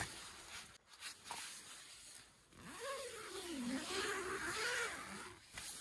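Nylon tent door zipper being pulled open along its curved track: a faint rustle early, then one long zip from about halfway through that wavers in pitch and stops shortly before the end.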